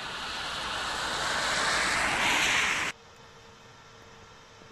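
A car approaching on a wet road, its tyre hiss growing steadily louder, then cut off suddenly about three seconds in. A much quieter road background with a faint steady hum follows.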